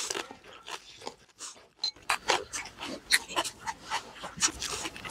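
Close-up eating sounds: a person chewing and smacking food, a fast, uneven run of short clicks that gets busier about two seconds in.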